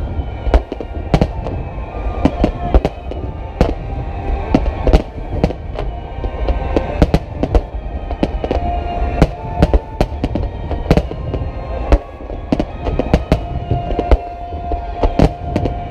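Fireworks display: a dense, continuous barrage of shell bursts and crackles, several sharp bangs a second over a low rumble.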